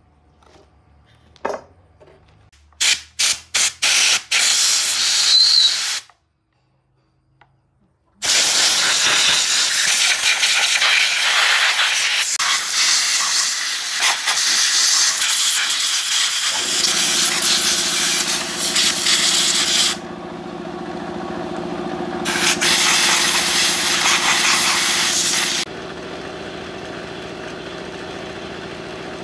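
Compressed air hissing from an air-tool nozzle: several short bursts, then a long continuous blast, and a second long blast near the end. A little over halfway through, an air compressor starts up with a steady hum and keeps running.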